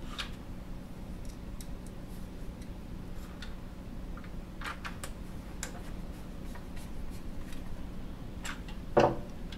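Scattered light clicks and ticks of a plastic dryer control panel being handled and screwed together, with one louder knock near the end, over a steady low hum.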